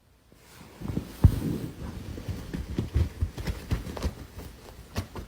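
Irregular light knocks and taps, with one heavier thump a little over a second in.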